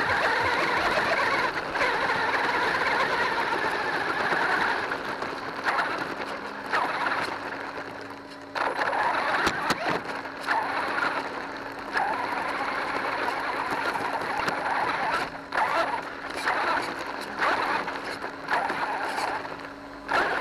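Onboard sound of a radio-controlled monster truck driving over gravel: tyres crunching and stones rattling against the chassis, in surges that die away and pick up again several times as the throttle is worked, over a steady low hum.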